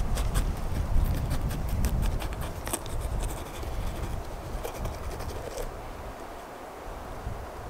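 A knife cutting around the stem of a crisp red bell pepper: a run of quick crunchy snaps that stop about five and a half seconds in. A low rumble runs underneath and fades away at about the same time.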